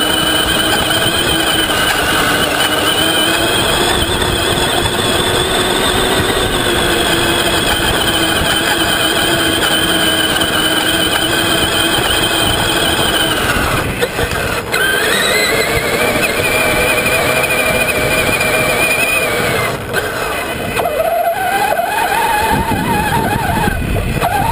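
Traxxas Summit RC truck's electric motor and gearbox whining as it drives over sand, with rough tyre and chassis noise underneath. The whine's pitch rises and falls with the throttle, and twice it cuts out briefly as the throttle is let off.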